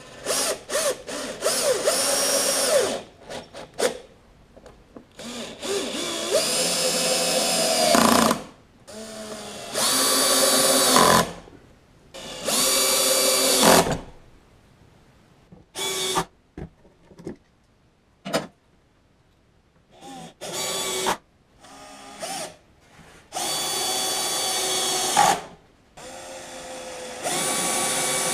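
An electric power tool with a drill-like motor whine, run in about ten short bursts of up to two seconds each, starting and stopping again and again.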